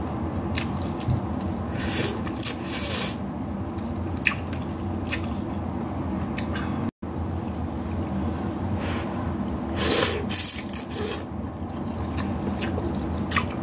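Eating instant noodles with chopsticks: slurping and wet chewing in short bursts, with light clicks of the chopsticks against the bowl, over a steady low hum. The sound cuts out for an instant about halfway through.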